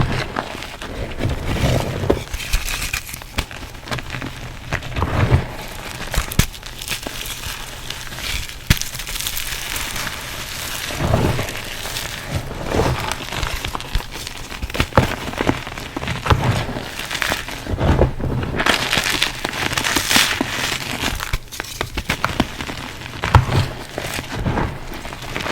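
Reformed gym chalk and cornstarch crunchies crushed in a bowl: dense crumbly crackling, with sharper cracks and louder crunches coming every second or two as pieces break apart.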